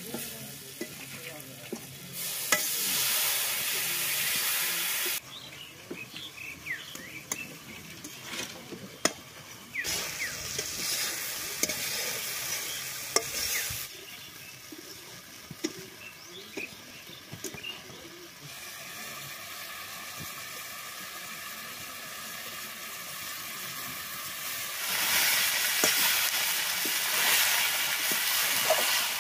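Food frying and sizzling in a steel kadai while a metal spatula stirs and scrapes it. The sizzle swells loud three times, with scattered clicks of the spatula against the pan between.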